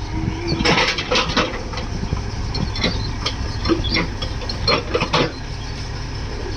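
Backhoe loader's diesel engine running steadily, with a series of sharp knocks and clatters scattered over the first five seconds.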